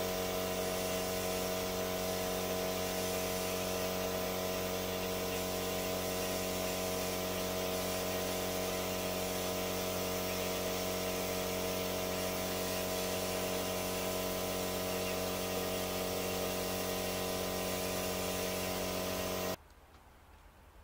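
Two-stroke chainsaw running at high, steady revs while cutting into a block of wood. The saw's note holds one unchanging pitch and cuts off suddenly near the end.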